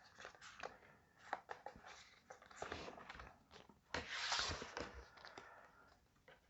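Faint handling of Pokémon trading cards: scattered light clicks and taps of cards against each other and the table, with a short papery rustle about four seconds in.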